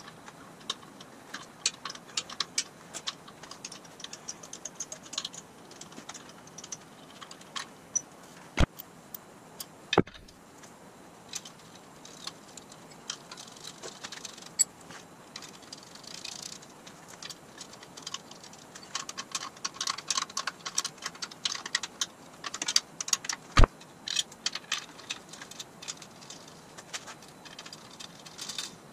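Hand tools and small metal parts clicking and clinking while a tap wrench and an aluminum trim strip are handled against a steel frame, with two sharper metallic knocks, the second one the loudest.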